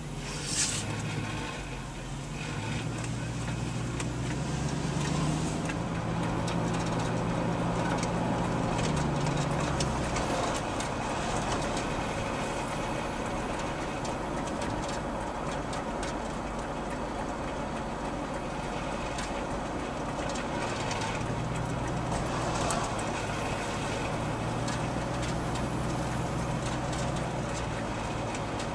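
A motor vehicle running with steady road noise; the engine's pitch climbs and holds twice, once a few seconds in and again about two-thirds of the way through, as it speeds up. A brief sharp click or knock comes just after the start.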